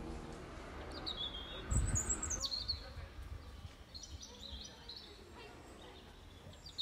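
Songbirds calling in the trees: several short, high whistled phrases, some gliding down in pitch. A brief low thump comes about two seconds in.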